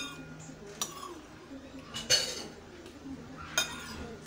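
A metal spoon clinking against a ceramic bowl of noodles: three separate clinks about a second and a half apart, the middle one the loudest, with a short ring.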